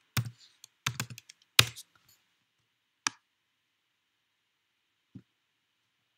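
A handful of sharp computer keyboard keystrokes and clicks, spread out with long gaps. The loudest comes about one and a half seconds in and a faint one near the end.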